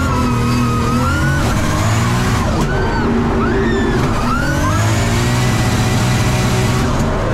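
Formula Drift car's engine revving hard through a drift, heard from inside the cockpit, the pitch sweeping up and down as the throttle is worked, loudest around the middle.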